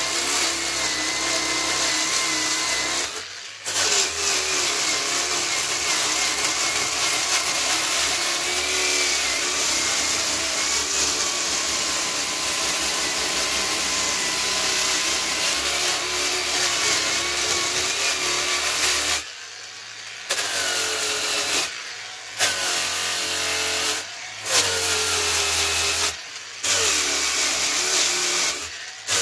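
Handheld electric power tool spinning a velcro sanding disc against jujube wood, its motor pitch sagging and recovering as the disc is pressed in. The sound breaks off briefly once about three seconds in and five more times in the last ten seconds.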